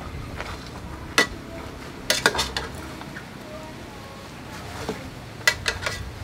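Metal ladle clinking against a metal cooking pot while stirring a stew: one sharp clink about a second in, a quick run of clinks around two seconds, and another run near the end.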